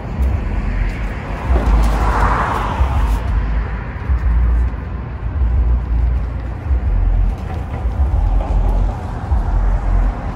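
Outdoor street noise: a steady low rumble that swells briefly about two seconds in.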